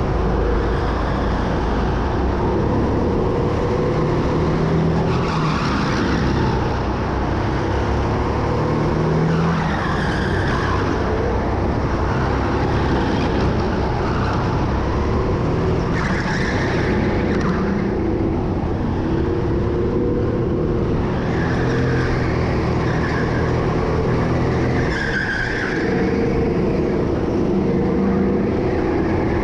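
Go-kart engine running at racing speed, its pitch rising and falling as it brakes and accelerates. Short tyre squeals come through corners several times.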